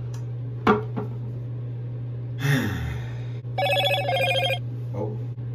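A telephone rings with a rapid trilling ring for about a second, a little past the middle, over a steady low hum. Earlier, a sharp knock comes about a second in, and a brief rushing noise follows near the halfway point.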